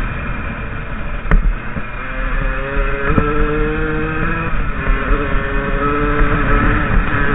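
50cc enduro motorcycle's two-stroke engine running under throttle on a rough dirt trail, its pitch climbing and dropping as the rider works the throttle. Two sharp knocks, about a second in and about three seconds in, and a low wind rumble on the microphone.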